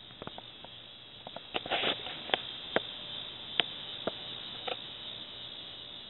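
Scattered sharp clicks and taps, about a dozen, most between one and five seconds in, from the camera being handled and moved, over a steady high hiss.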